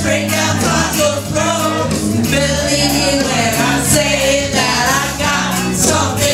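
Karaoke: a rock song's backing track playing with women singing along over it.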